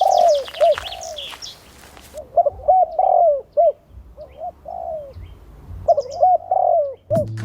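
A dove cooing in three repeated phrases, each a run of soft rising-and-falling coos, with faint chirps from small birds behind it.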